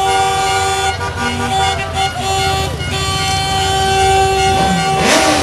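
Several vehicle horns honking at once in long, steady blasts at different pitches. Shouts from the crowd rise over them near the end.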